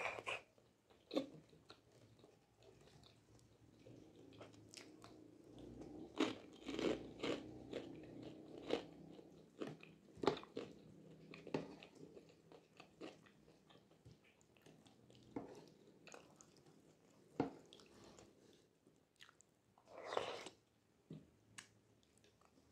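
Close-miked mouth sounds of a person eating flat rice noodles and meatballs in broth: steady chewing with scattered short sharp clicks, and a longer, louder burst of noise near the end.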